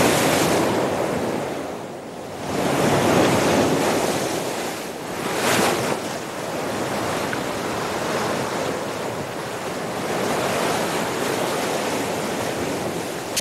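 Sea surf breaking on rocks: a continuous rush of water that swells with each wave. There is a sharp crash about five and a half seconds in.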